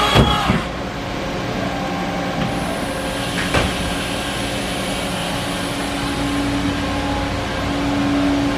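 Steady mechanical hum of a Haas EC400 horizontal machining center running, with a couple of sharp clunks, one at the start and one about three and a half seconds in, and a steady low tone joining about six seconds in.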